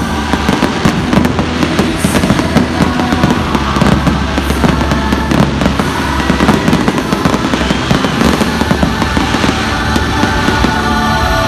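Fireworks display: a continuous barrage of shells bursting and crackling, many overlapping bangs with no let-up. Music plays underneath and becomes clearer near the end.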